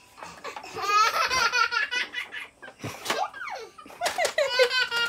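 A baby laughing in two bouts of giggling belly laughs, with a thump about three seconds in.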